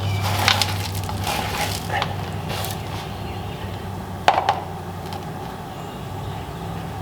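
A PVC drain pipe being shifted and tapped in the ground to change its slope: a few scattered crunches and knocks, the sharpest about four seconds in, over a low hum that fades in the first second or so.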